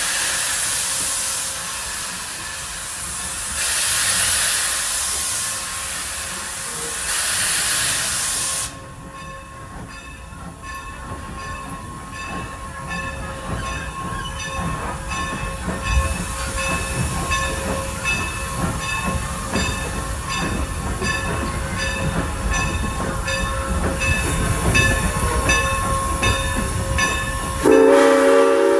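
Norfolk and Western 475 steam locomotive: loud hissing steam in surges for several seconds, then running with a steady rhythmic beat over a rumble that slowly builds. Near the end its steam whistle starts to blow.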